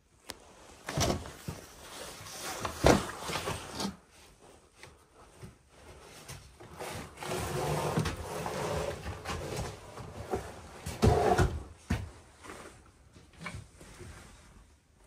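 Irregular knocks and wooden scraping and creaking, with the sharpest knocks about three seconds in and about eleven seconds in.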